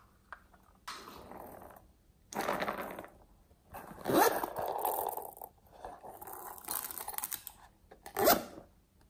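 Metal zipper on a pink ice-cream-cone pouch being pulled along its track in about five separate strokes with short pauses. The loudest pulls come about four seconds in and near the end.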